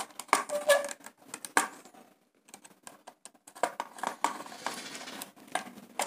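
Scattered small clicks and rustles of stiff red PVC-insulated wire being handled and pushed into the top screw terminal of a modular two-way switch. The clicking is sparse, pauses briefly about two seconds in, then becomes busier in the second half.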